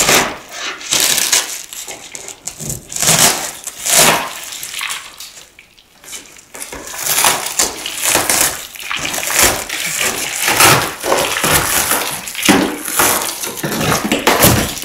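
Shattered laminated windshield glass crunching and crackling as it is pried and cut out of the frame of a 1993 Honda Acty with a hand tool. The sound comes in irregular scrapes and crunches of uneven strength, with a brief lull about six seconds in.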